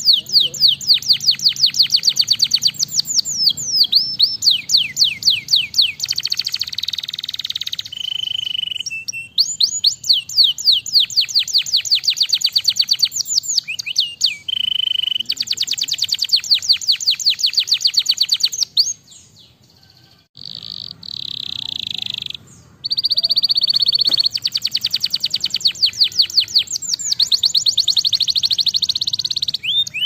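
Domestic canary singing long, rapid trills of repeated sweeping notes, broken by short steady whistled notes and buzzy rolls. The song pauses briefly about two-thirds of the way through, then resumes.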